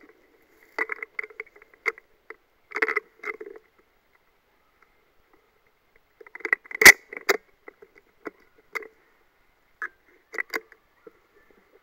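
Irregular crunching footsteps on loose stones and gravel, mixed with knocking and rubbing handling noise from a rifle-mounted camera. The steps come in short bunches with pauses, and one sharp knock about seven seconds in is the loudest.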